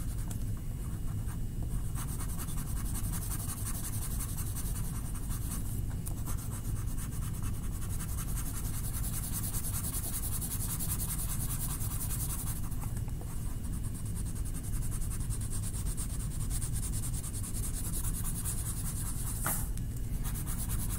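Steady scratchy scribbling of colouring in on paper, pressed hard, with a few brief pauses. One sharp click comes near the end.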